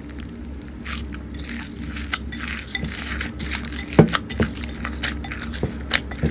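Crunchy slime being squeezed and pressed by hand, giving an irregular run of crisp clicks and crackles. The sharpest pop comes about four seconds in, over a faint steady low hum.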